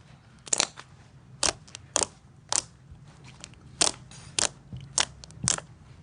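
Slime being squeezed and pressed by hand, giving a series of sharp crackling pops, about two a second.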